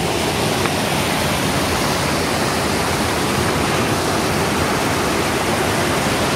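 Water rushing steadily over rapids at a small dam, an even, unbroken rush of white water.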